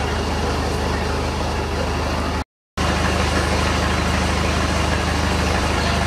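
A steady, loud engine drone with a constant low hum under an even rushing noise. It drops out for a split second about two and a half seconds in, then resumes unchanged.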